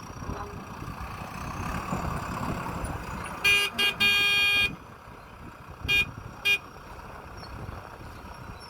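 Vehicle horn honking: two short beeps, a longer honk of under a second, then two more short beeps, over a low engine rumble from the machinery at work.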